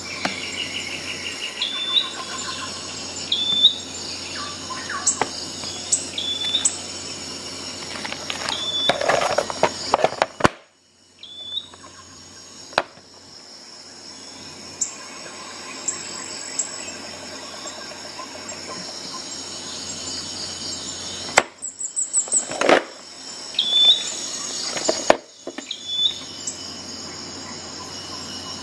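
Steady chirring of insects with short high chirps every few seconds. Several sharp clicks and knocks of handling come through, grouped about nine seconds in and again from about twenty-one to twenty-five seconds in.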